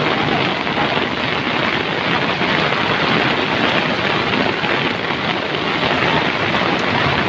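Muddy flash-flood water rushing and churning through a swollen stream channel: a loud, steady, unbroken noise of fast-moving water.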